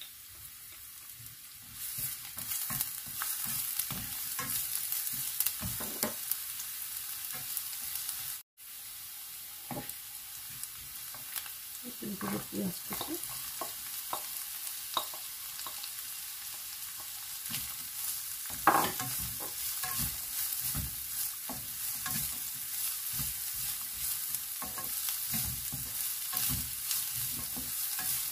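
Minced garlic, then chopped red onion, sizzling in hot olive oil in a nonstick frying pan, with short knocks and scrapes against the pan. The sizzle grows louder about two seconds in and cuts out for a moment about a third of the way through. One sharp knock comes a little past halfway.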